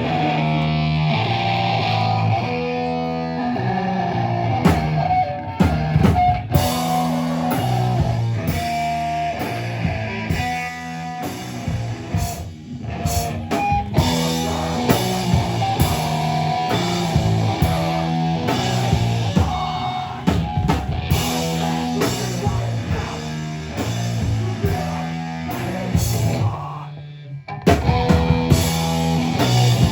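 Live rock band playing a song with distorted electric guitars, bass and a drum kit. The band stops briefly about halfway through, then drops out for about a second near the end before crashing back in.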